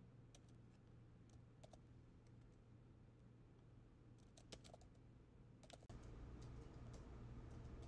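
Faint typing on a laptop keyboard: irregular, scattered keystrokes over a low, steady room hum that gets louder about six seconds in.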